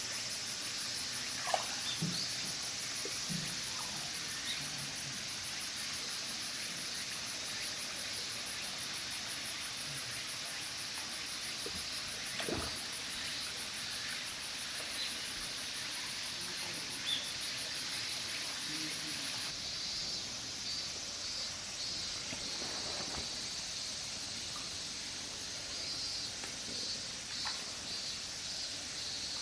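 Insect chorus: a steady, high-pitched pulsing trill that shifts in character about two-thirds of the way through, with a few short faint chirps near the end.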